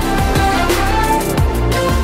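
Background electronic music with a heavy, repeating bass beat.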